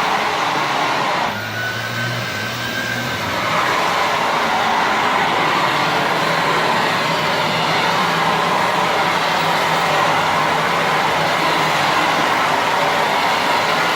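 Leaf blower/vacuum running steadily in vacuum mode, a loud rushing of air and motor. It drops in level about a second in and comes back up about three and a half seconds in.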